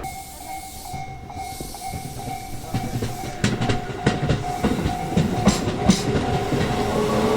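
Tobu Tojo Line electric train pulling away, its wheels clicking over rail joints more and more often. A motor whine comes in about five seconds in and rises in pitch as the train gathers speed.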